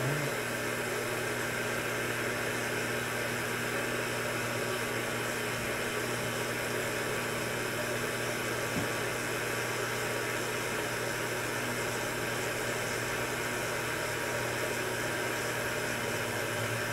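Steady whir of fan noise with a low electrical hum beneath it, even and unchanging.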